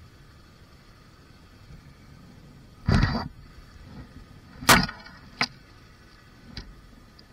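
Motorcycle jolting over a rough stone-and-dirt track: a few sharp knocks and thumps over a faint steady background. A strong thump comes about three seconds in, the loudest just under five seconds in, a short click right after it, and a faint knock near the end.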